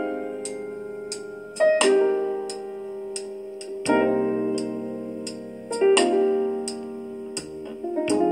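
Piano song intro: a chord struck about every two seconds and left to ring, over a light ticking beat about twice a second.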